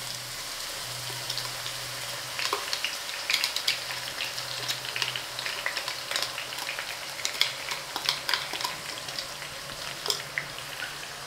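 Hot cooking oil sizzling in a pot, with many sharp crackles as a pounded paste is dropped in and stirred. The crackling thickens a couple of seconds in.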